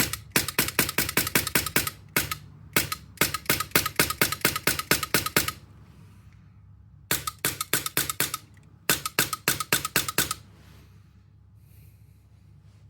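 Polarstar Kythera HPA engine in an airsoft rifle being test-fired: several bursts of rapid full-auto shots, with a couple of single shots between them, the engine cycling correctly.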